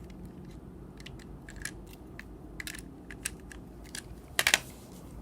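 LEGO puzzle box being handled, its plastic bricks clicking and clacking: scattered small clicks, with a louder cluster of clacks a little after four seconds in.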